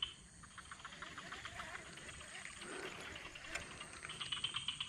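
Insects trilling faintly: a high steady buzz that gives way to quick, evenly spaced pulses in the middle.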